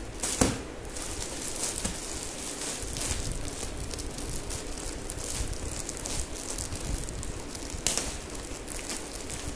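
Plastic courier packet crinkling and crackling as hands handle and turn it, with irregular sharper crackles throughout.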